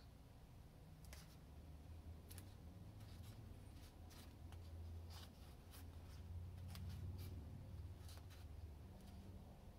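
Faint, scattered clicks and rustles of EVA foam mask pieces being handled and pressed together by hand, over a low hum that swells slightly in the middle.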